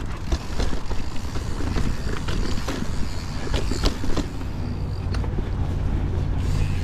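Santa Cruz 5010 mountain bike riding over a dirt trail: a steady rumble of tyres and wind on the chest-mounted camera's microphone, with frequent irregular clicks and rattles from the bike.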